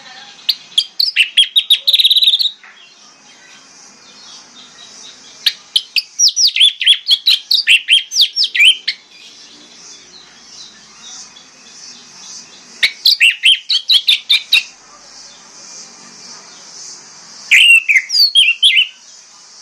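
Orange-headed thrush (anis merah) singing: four bursts of rapid, downward-sweeping whistled notes, separated by pauses of a few seconds.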